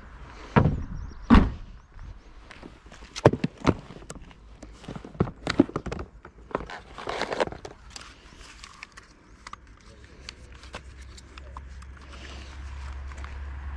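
Equipment handling: two knocks near the start, then a run of clicks and rattles as a foam-lined hard case is opened and a DJI folding drone is lifted out and its arms unfolded. A low rumble builds over the last few seconds.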